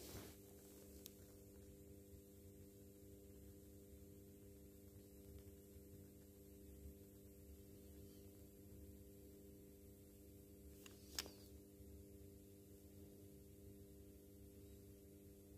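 Near silence with a steady low electrical hum, broken by a couple of faint clicks early and one sharper click about eleven seconds in.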